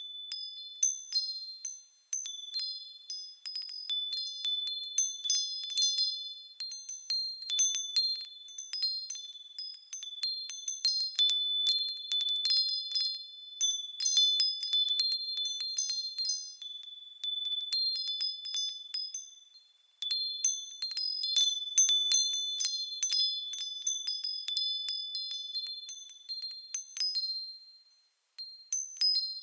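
Small high-pitched metal wind chimes tinkling, struck in irregular clusters that ring and fade away in waves every few seconds.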